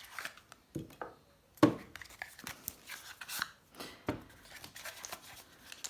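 Small gel polish pots being taken out of their little cardboard boxes and set down on a table: scattered light knocks and taps with soft rubbing of card, the sharpest knocks about a second and a half and four seconds in.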